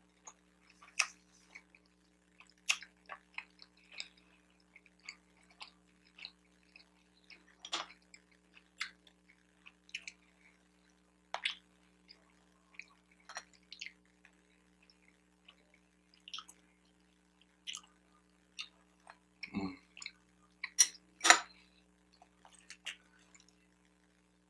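Close-miked chewing and mouth smacking of someone eating a bacon, egg and Swiss cheese everything bagel sandwich: irregular short clicks and smacks, with a louder cluster of sharp ones near the end.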